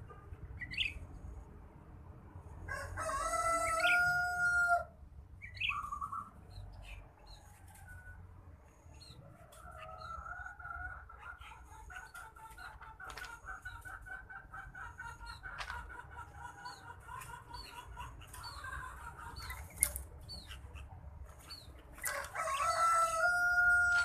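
A rooster crowing twice, once about three seconds in and again near the end, each crow about two seconds long and the loudest sound. Short, fainter bird chirps come in between.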